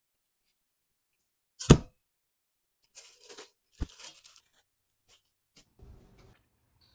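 A single loud thump, then plastic cling film crinkling as it is pulled and stretched over the dough, with a short knock in the middle. A few faint clicks follow.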